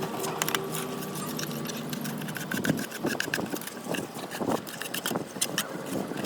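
A steady motor hum that stops about two seconds in, with scattered clicks and knocks throughout.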